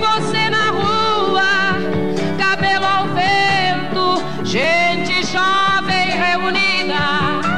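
A woman singing a ballad in Portuguese with strong vibrato and long held, gliding notes, over a band accompaniment.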